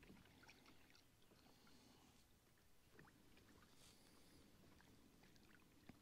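Near silence on a fishing kayak, with faint scattered small ticks and taps, one a little louder near the end.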